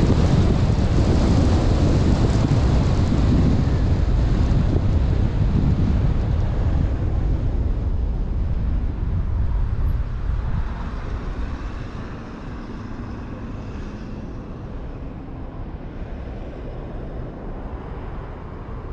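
Car driving: road rumble and wind buffeting the microphone, which drops noticeably in level about eleven seconds in.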